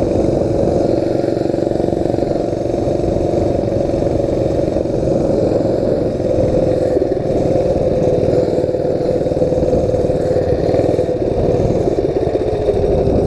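Mini bike's small engine running steadily under way at a constant speed, its pitch easing down slightly near the end.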